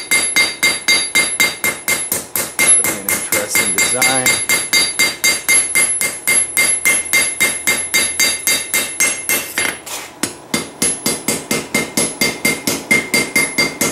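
Hand hammer forging a red-hot blade of Heller file steel on an anvil: a steady run of blows, about three to four a second, each ringing off the anvil, with a brief pause about ten seconds in.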